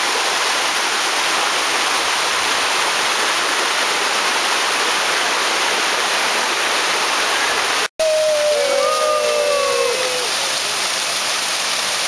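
Steady, loud rush of a mountain stream cascading over rocks and a waterfall. It breaks off for an instant about eight seconds in; after that, voices call out briefly over the falling water.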